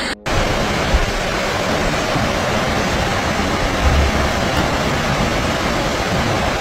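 Steady rushing roar of fast-moving floodwater, with a couple of low thumps about one and four seconds in.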